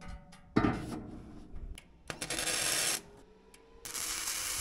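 Welding arc tack-welding a steel roof purlin: two bursts of hiss, the first about two seconds in and lasting under a second, the second starting near four seconds in. A sharp metallic knock about half a second in.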